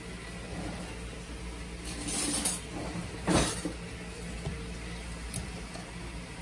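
A couple of light clinks of kitchenware, about two and three seconds in, over a steady low hum.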